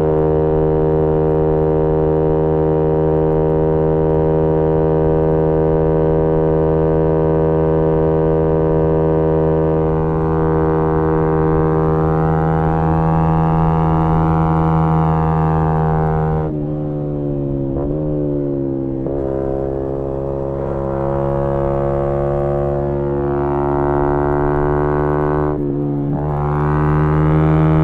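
A 2018 Yamaha MT-125's single-cylinder four-stroke engine running loud through a GPR aftermarket exhaust, held at steady high revs. About 16 seconds in the throttle shuts off and the pitch falls, then the revs climb again. A short lift near the end is followed by rising revs once more.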